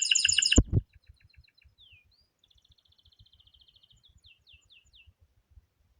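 Songbird singing: a loud, harsh, rapidly repeated call in the first half-second, cut off by a low thump, then fainter song with a buzzy trill and several quick downward-sliding notes.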